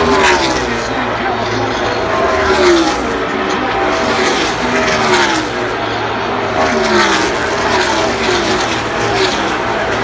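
NASCAR Cup stock cars' V8 engines going by one after another at racing speed, each engine note dropping in pitch as the car passes, about every two seconds.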